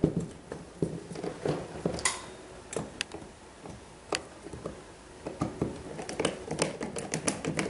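Hand screwdriver tightening the screws of a plastic ceiling supply-air outlet, giving scattered clicks and scrapes. The clicks come faster and more evenly in the last couple of seconds.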